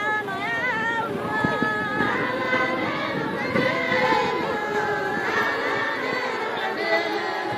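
Many voices, mostly women's, singing together as they walk in procession, with long held notes and voices overlapping.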